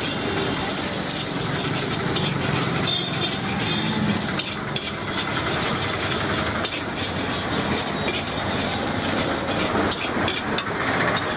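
Egg, tomato and chicken sizzling in a large iron wok, stirred and scraped around by a long metal spatula, with frequent quick scrapes and clicks of metal on the pan over a steady frying hiss.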